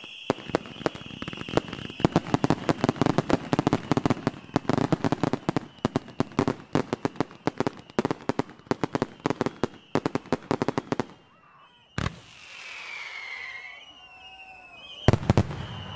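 Professional display fireworks: a rapid, dense barrage of bursting shells and crackling reports for about eleven seconds. After a brief lull comes one sharp bang, then whistling effects gliding in pitch as spiral-tailed shots rise, and another cluster of bangs near the end.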